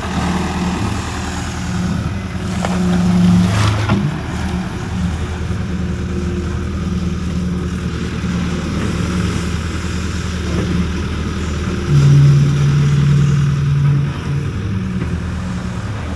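Hitachi excavator's diesel engine running steadily under hydraulic load while the bucket works through mud, getting louder around three seconds in and again for about two seconds near twelve seconds in. A single knock shortly before four seconds in.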